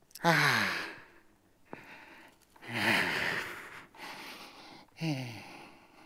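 A man's voice giving three loud, breathy sighs, each falling in pitch, spaced about two and a half seconds apart.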